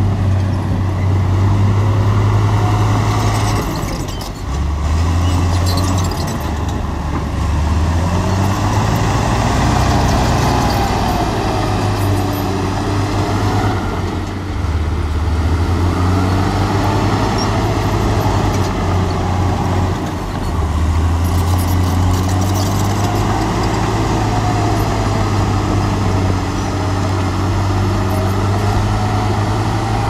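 Small crawler bulldozer's diesel engine running under load, its low drone dropping and rising in pitch every few seconds as it pushes mud.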